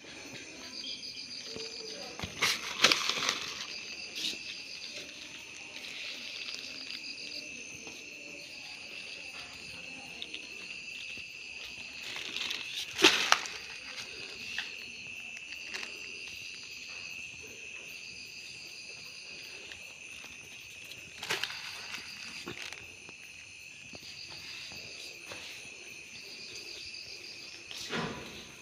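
Crickets chirping: one steady, unbroken high trill, with a second, higher-pitched cricket chirping in trills of about a second, every two seconds or so. A few sharp knocks as crickets are grabbed by hand off the tile floor, the loudest about halfway through.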